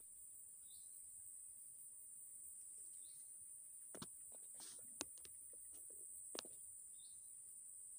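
Faint, steady high-pitched drone of insects in swampy vegetation, with three short faint chirps spread through it. A few soft clicks come about four, five and six and a half seconds in.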